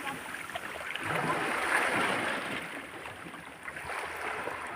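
Shallow water washing in over sand: a soft, even hiss that swells and fades.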